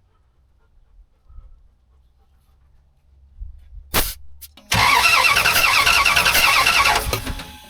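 A sharp click, then the 1997 Dodge Ram's 5.9 Magnum V8 cranking over on the starter with an even, pulsing rhythm for about three seconds before it stops, during a compression test of one cylinder.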